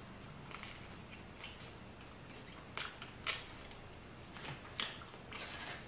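Pizza being chewed close to the microphone: a quiet stretch broken by short, sharp mouth clicks and crunches, two louder ones about three seconds in.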